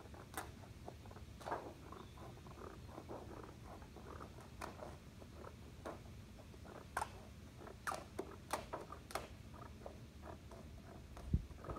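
Scissors snipping through thin aluminum flashing: faint, irregular crisp snips and crinkles of the sheet metal, with a dull knock near the end.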